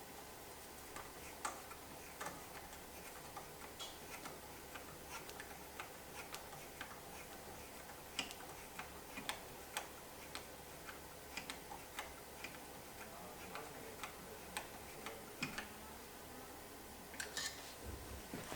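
Faint, irregular light metallic clicks and ticks of a screw being fastened by hand with a tool on the machine's metal housing, with a short cluster of louder clinks near the end.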